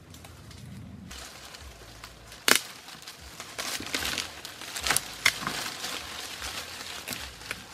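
A wooden pole being jabbed and worked into dry forest soil among leaf litter: one sharp strike about two and a half seconds in, then a run of scraping, crunching knocks, with dry leaves rustling.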